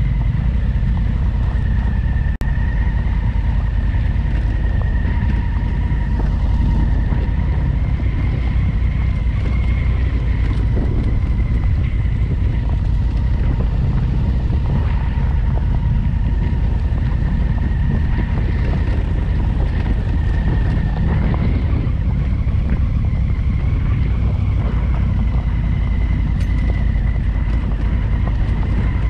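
Adventure motorcycle being ridden, its engine running steadily under heavy wind buffeting on the microphone, with a faint steady high whine.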